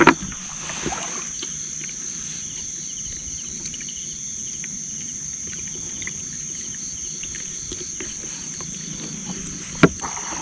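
A chorus of insects shrilling steadily at one high pitch, over soft handling noise with scattered small knocks and a sharp click near the end.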